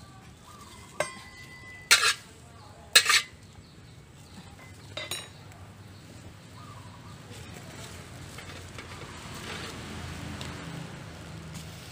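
Metal cookware clanking: a light knock that rings on briefly about a second in, two loud sharp clanks about a second apart, then a softer one. A faint steady hiss builds near the end.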